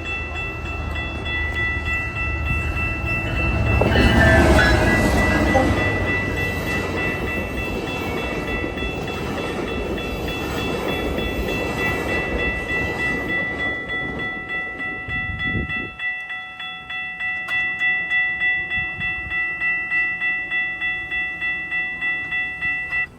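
GO Transit commuter train passing a level crossing. The rumble is loudest about four seconds in and stops abruptly about sixteen seconds in. The crossing's warning bells ring on steadily throughout, pulsing evenly once the train has gone.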